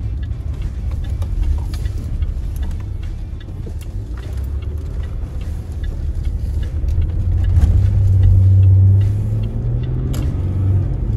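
Land Rover SUV driving, heard from inside the cabin: a steady low engine and road rumble, the engine note swelling louder for a second or two about three-quarters of the way through, then easing back.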